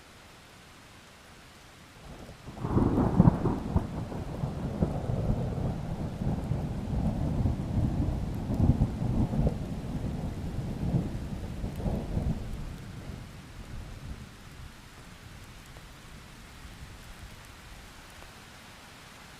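A long peal of thunder over steady rain. The rumble swells suddenly about two and a half seconds in, stays strong with a rolling, uneven low rumble for about ten seconds, then fades away, leaving only the rain.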